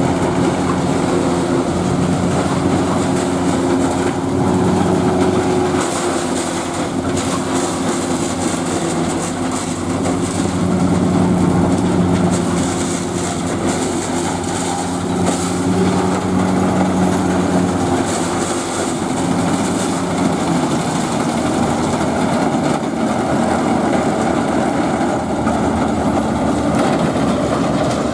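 Zetor tractor diesel engines running steadily under load while a tractor-drawn SKPU 220 forage harvester chops maize and blows it through its spout into a silage trailer, with a continuous clattering rattle from the chopper and trailer.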